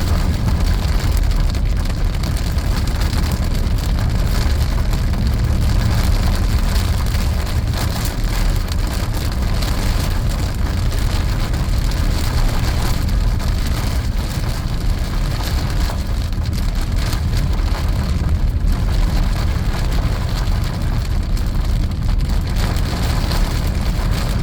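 Heavy thunderstorm rain pelting down steadily, with high wind rumbling on the microphone.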